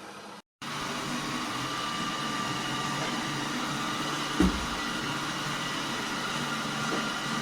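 Ultenic D10 robot vacuum running: a steady motor and fan noise with a thin, even whine. One short thump comes about four and a half seconds in.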